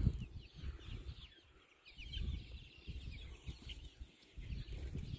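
A small flock of young chickens peeping and clucking softly, many short high calls overlapping, over a low uneven rumble.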